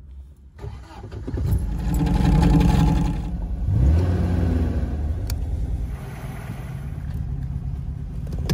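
MGB roadster's four-cylinder engine being started: the starter cranks for about a second, the engine catches and is revved twice, then settles to a steady idle.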